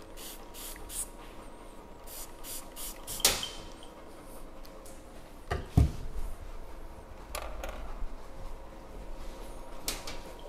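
Handling noises around a dog's hind leg being prepared for a blood draw on a steel exam table: short hissing rustles, a sharp click about three seconds in, and a loud low thump just before six seconds in, then a few more clicks.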